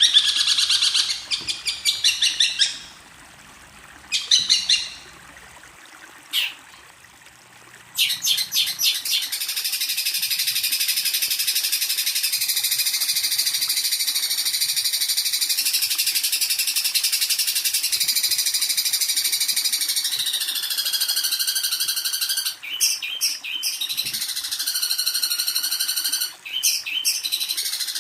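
Recorded songbird song: rapid, high trilled phrases, a short lull, then from about 8 s in a continuous, dense chattering song with falling slurred notes near the end. This is bird-song training material for long-tailed shrikes.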